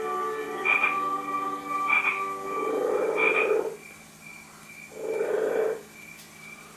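Frogs croaking: short calls repeat about every second and a quarter, then come two longer, lower croaks, one near the middle and one later on. A faint steady high whine runs underneath.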